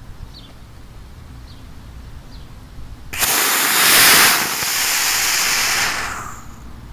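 Homemade PVC-cased potassium nitrate, sugar and sulfur rocket motor lit on a static test stand about three seconds in. It burns with a loud, steady hiss for about three seconds, loudest just after lighting, then dies away.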